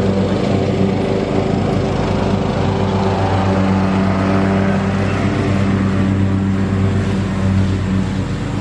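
An engine or motor running steadily with an even low hum.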